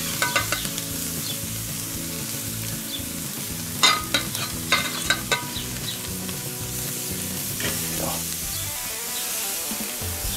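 Marinated pork belly strips sizzling on a hot charcoal grill grate. A few sharp metallic clicks of stainless tongs against the steel bowl and grate come mostly about four to five seconds in.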